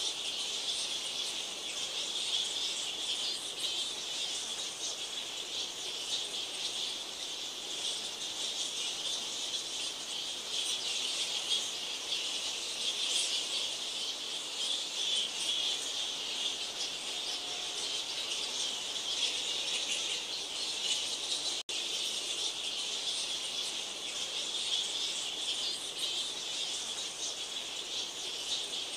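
A large colony of straw-coloured fruit bats (Eidolon helvum) calling: a dense, steady, high-pitched din of many overlapping calls. There is a momentary break about three-quarters of the way through.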